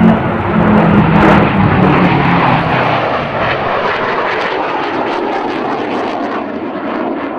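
Jet fighters in formation, including a Gloster Meteor F.8, passing the crowd line. A loud jet roar with a low engine drone swells to a peak about a second in, then slowly fades as they draw away.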